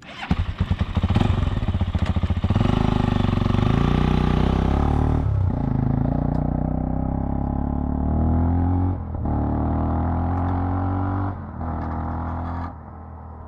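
SWM Silver Vase 440's single-cylinder four-stroke engine starting up and firing unevenly for the first couple of seconds, then running steadily with the revs rising and falling. Its level drops sharply near the end.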